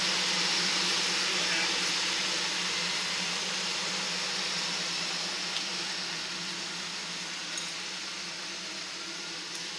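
Off-road vehicle engine running steadily at low revs, a constant low hum under a steady hiss, easing off slightly over the seconds.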